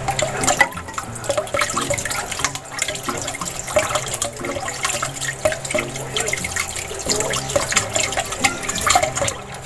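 A wet mixture being stirred or beaten by hand in a bowl: a quick, irregular run of clicks and sloshing.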